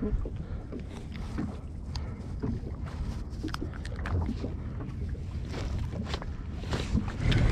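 Wind buffeting the microphone on a small open boat, a steady low rumble, with scattered light clicks and taps as a squid head is worked onto a fishing hook.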